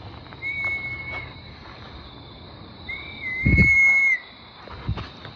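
Two long, high whistled notes held at nearly one pitch, the second about three seconds in and longer, swooping up into it and dipping at the end, with a heavy low thump under it. A faint steady high whine runs beneath, and the sound cuts off suddenly at the end.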